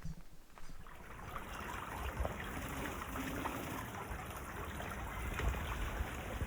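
A small bush stream flowing steadily, its water sound swelling in about a second in.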